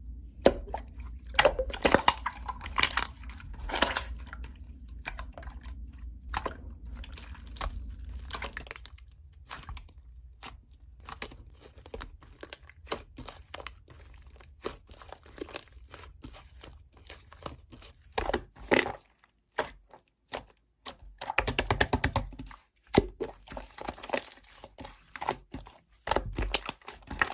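Hands squishing, pressing and poking slime, making irregular sticky pops and crackling clicks, with a quieter pause about two-thirds of the way through.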